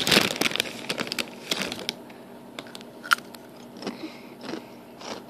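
Ruffles potato chip bag crinkling and rustling as a hand reaches in and pulls out a chip: a dense burst of crackles at the start, then scattered crackles.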